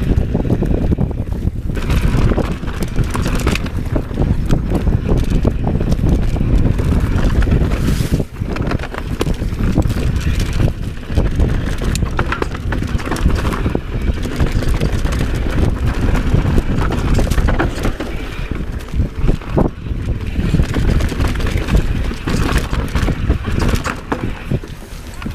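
Wind buffeting the microphone of a mountain bike descending a dirt singletrack, a constant low rumble, with tyres on dirt and the bike rattling and knocking over bumps throughout.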